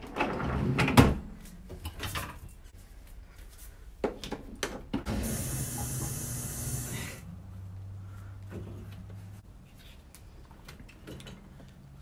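Rubber flip-flops knocking and rattling as they are set into a dishwasher's wire rack, loudest about a second in, with scattered clicks after. About five seconds in there is a hiss lasting about two seconds, followed by a short low hum.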